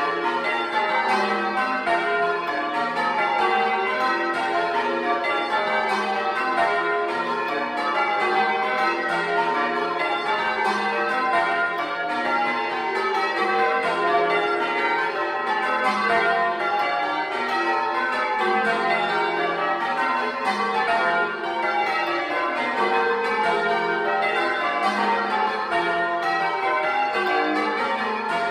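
Ten church bells of a belfry, the heaviest a 17-cwt tenor in F, change ringing in Grandsire Caters: nine bells work through the changes while the tenor covers. Heard close up from inside the belfry, the strokes follow one another in a steady, unbroken stream.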